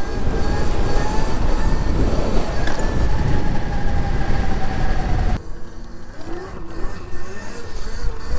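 Razor electric dirt bike being ridden: the electric motor's steady high whine over wind and tyre noise. About five seconds in it cuts off suddenly and gives way to a quieter, wavering sound.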